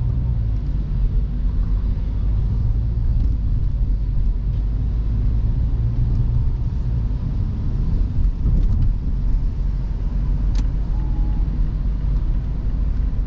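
Engine and road rumble heard inside the cabin of a moving Mazda car, steady and low. A single sharp click comes about ten and a half seconds in.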